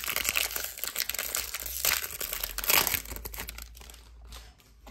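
Trading-card pack wrapper crinkling and tearing as it is pulled open by hand. The crackling is loudest for the first three seconds and then dies away.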